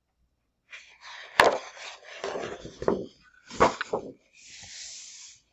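Sheets of scrapbook paper being handled and turned over: a rustle with two sharp paper snaps, about a second and a half in and again near four seconds, then a soft sliding rub of paper near the end.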